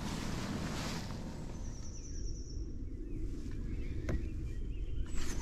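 Steady low outdoor background rumble with a brief hiss in the first second, and a single sharp click a little after four seconds.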